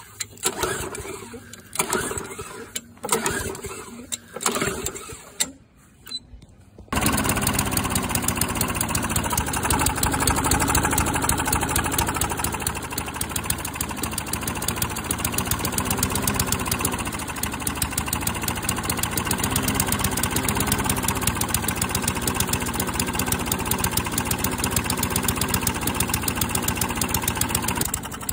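Tecumseh lawn mower engine being started: short bursts about once a second as it is pulled over, then it catches about seven seconds in and runs steadily.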